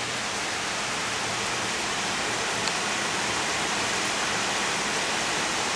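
Steady rain falling, an even hiss; a rain that is not very heavy.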